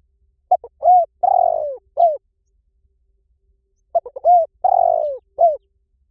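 Spotted dove cooing: two call phrases about three and a half seconds apart, each a run of short coos with one longer, rougher coo near the end.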